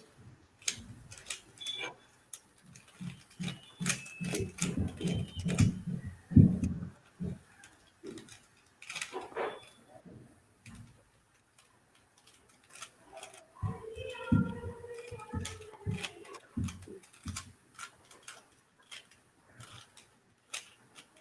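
A Rubik's cube being turned rapidly by hand: a quick, uneven run of plastic clicks as the layers are twisted, with dull handling bumps on the microphone. A voice is heard briefly near the middle.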